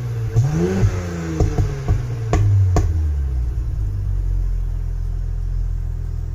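Audi B9 S5's turbocharged 3.0-litre V6 through a Supersprint exhaust with its valves open: one quick rev blip about half a second in, then a run of sharp pops and crackles as the revs drop, before it settles into a steady idle.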